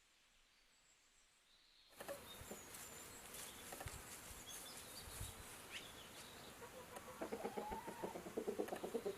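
Near silence for about two seconds, then chickens clucking over a noisy farmyard background, the clucking turning into a louder, quick rhythmic run about seven seconds in.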